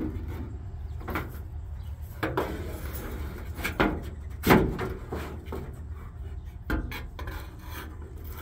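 Scraping, rubbing and knocking from a wiring loom and pull-line being worked through the sheet-metal side of a pickup bed. Irregular scrapes, with a sharp knock a little past halfway and another near three-quarters through, over a steady low rumble.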